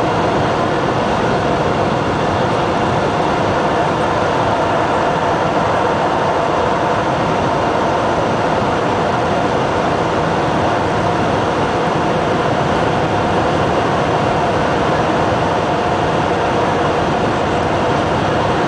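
Steady cabin noise inside an Airbus A320 in flight: the even rush of air and the engines' drone, with a couple of faint steady tones running through it.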